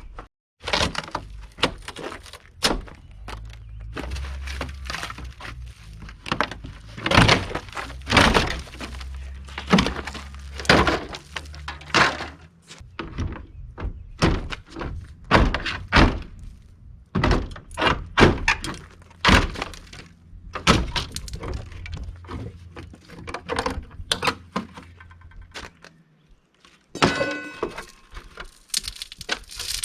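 Irregular sharp knocks and bangs of demolition work on an RV's door frame, over a low steady hum that stops near the end. A short squeal follows shortly before the end.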